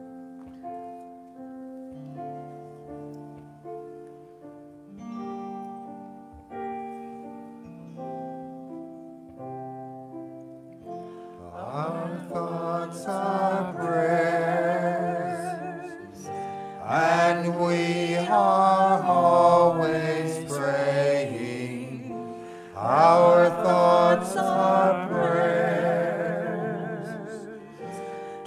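Keyboard playing a slow introduction of held chords, then a small vocal group comes in about twelve seconds in, singing a slow song with vibrato over the keyboard.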